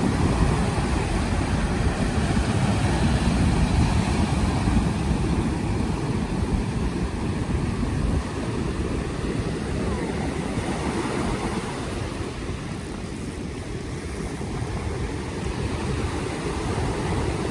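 Ocean surf breaking and washing up a sandy beach, with a heavy, uneven rumble of wind on the microphone.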